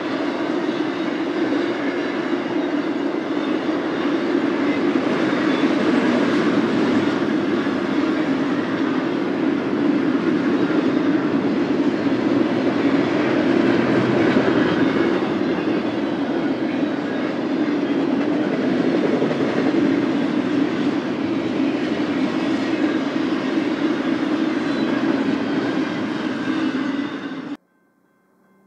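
BNSF intermodal freight train rolling past: a steady rumble of wheels on rail with some clickety-clack, which cuts off suddenly near the end.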